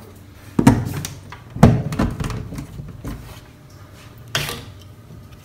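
Two sharp knocks about a second apart, then lighter knocks, as a plastic drawer-rail bracket is pushed and tapped into pre-drilled holes in a cabinet's side panel. A short rustle comes near the end.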